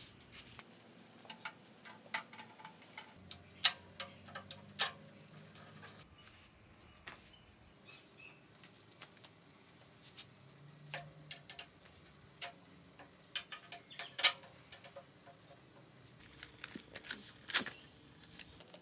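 Irregular light clicks and taps of tools and metal bicycle parts being handled, with a few sharper knocks. The background hiss changes suddenly several times where short clips are joined.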